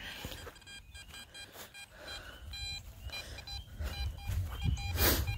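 Metal detector beeping through its built-in speaker: a run of short, repeated electronic tones, the detector's signal that it is picking up metal. A brief loud rush of noise comes near the end.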